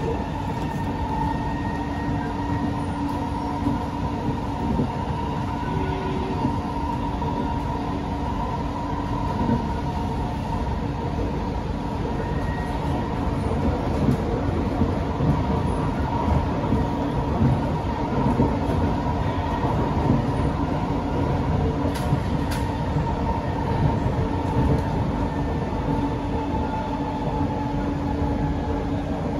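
SMRT Kawasaki–CSR Sifang C151A metro train car running between stations, heard from inside the car. A steady rumble of wheels on rail with a constant hum.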